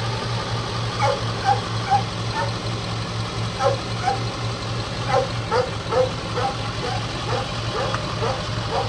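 Ford Super Duty tow truck's engine running with a steady low hum, while a dog yaps and yips repeatedly, in short irregular barks a few a second, the loudest thing on top of the engine.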